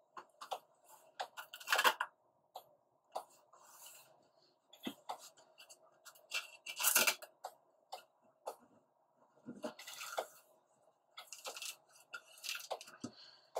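Fingers pressing and rubbing self-adhesive LED strips down onto a metal reflector panel: irregular short scrapes and rubs, the loudest about two seconds in and again around seven seconds.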